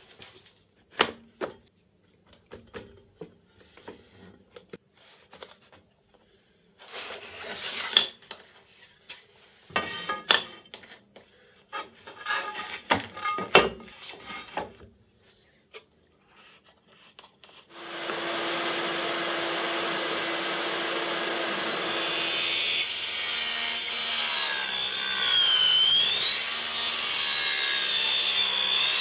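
Knocks, clicks and scrapes of wooden stop blocks and an aluminium extrusion being handled and clamped on a table saw crosscut sled. About two-thirds of the way in, the table saw starts and runs steadily. A few seconds later a high whine joins it as the blade cuts the aluminium extrusion, dipping in pitch under load and recovering.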